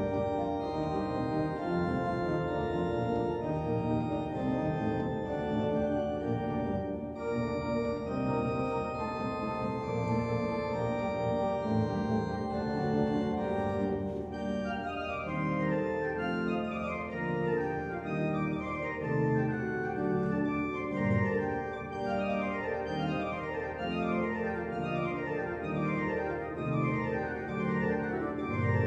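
Organ music: held chords, with quick runs of notes from about halfway through.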